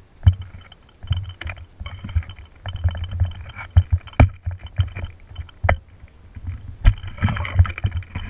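Footsteps and scuffs on a rocky dirt trail while hiking uphill: irregular thuds and crunches, with sharp clicks from the camera being jostled.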